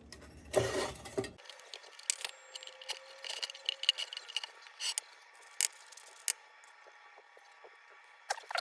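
Scattered light clicks, taps and scrapes of metal lantern parts being handled as the crown of a cold-blast lantern is worked on, with a louder rustle near the start.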